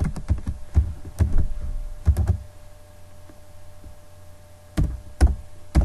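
Computer keyboard being typed on: irregular keystrokes in short clusters, with a pause of about two seconds in the middle.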